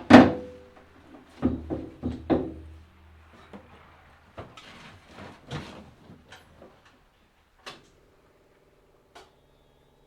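A loud metallic bang, then three ringing clanks about half a second apart, followed by lighter clicks and knocks; a faint steady hum begins near the end.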